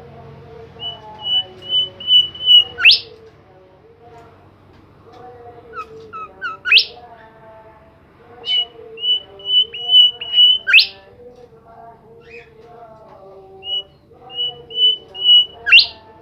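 A songbird singing the same loud phrase four times. Each phrase is a run of short, even high notes that grows louder and ends in a sharp upward whip note. Softer, lower warbling runs underneath throughout.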